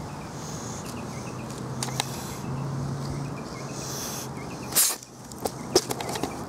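Outdoor background of faint, repeated bird chirps over a low steady hum. It is broken by a few sharp clicks and, just before five seconds in, one short, loud rush of noise.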